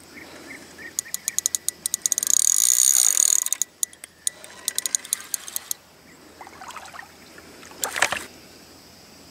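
Drag of a large spinning reel clicking as a hooked carp pulls line off. The clicks speed up into a continuous high buzz for about a second and a half, then slow to scattered clicks. A short burst of noise comes near the end.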